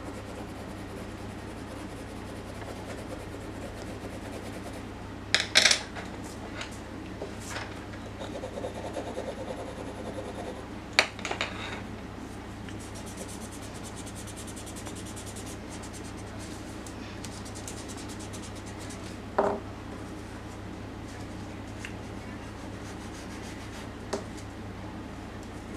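Pencil and blending tool rubbing and scratching over drawing paper, with a few sharp taps against the wooden desk, over a steady low hum.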